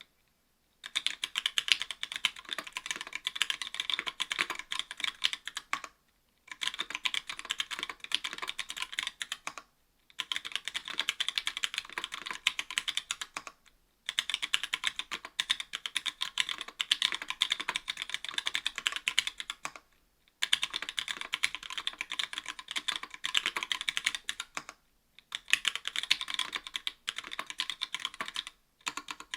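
Typing on a mechanical keyboard with stock Gateron Yellow linear switches, an aluminium plate and GMK keycaps: rapid keystrokes in runs of several seconds, each run broken off by a short pause.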